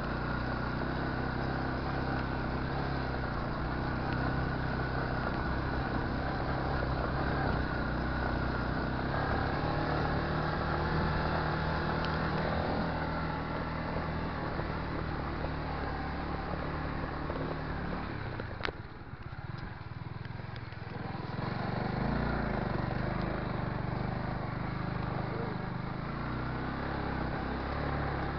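Motorcycle engine running under load while climbing a rough dirt trail. About two thirds of the way through, after a sharp click, the engine note drops for a couple of seconds, then picks up again.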